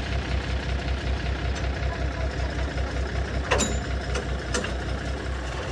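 Heavy diesel truck engine idling with an even low throb. A short squeak falls in pitch a little past halfway through.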